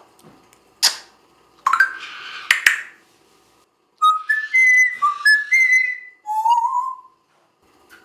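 African grey parrot whistling: a quick run of short notes jumping between pitches, then one longer note that slides upward. Earlier come a sharp click and a short harsh burst of sound.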